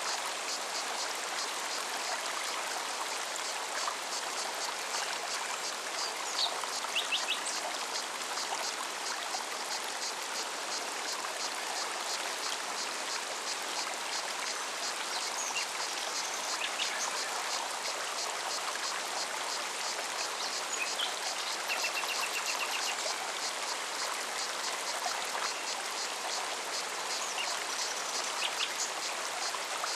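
Mountain stream running steadily over rocks. Through it comes a cicada's high, evenly pulsing song, with a few brief bird chirps.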